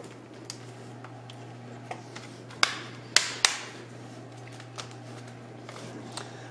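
Hands handling a Toshiba Satellite laptop's plastic case and parts during reassembly, giving small scattered clicks and three sharp, louder clicks near the middle, over a steady low hum.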